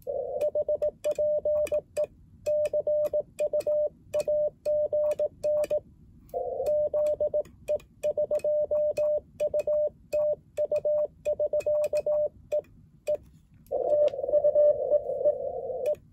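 Morse code (CW) on an ICOM IC-705 transceiver: a tone near 600 Hz keyed on and off in dots and dashes, with a sharp click at the keyed elements. From about three-quarters of the way through, the tone turns noisier and rougher.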